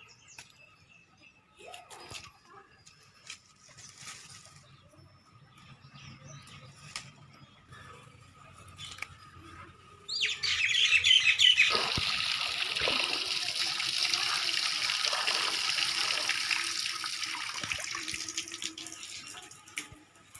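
Water pouring in a steady stream: it starts abruptly about halfway in, runs for about eight seconds and fades away near the end.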